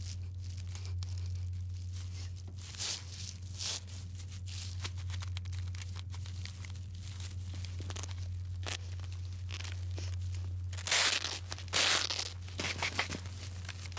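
A hedgehog scrabbling on a kitchen scouring sponge: dry crackly scratching and rustling, with a few louder scuffs near the end, over a steady low hum.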